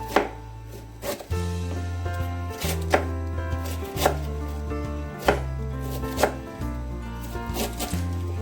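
A knife chopping on a cutting board in single strokes about once a second, over background music with a held, changing bass line.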